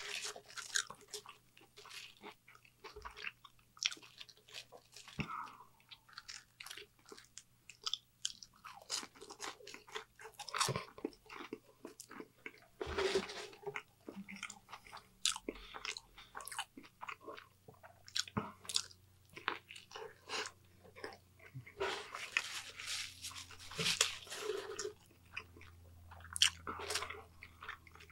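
Close-miked chewing and crunching of fast food, mainly french fries, in irregular runs of crunches and mouth clicks, over a faint steady low hum.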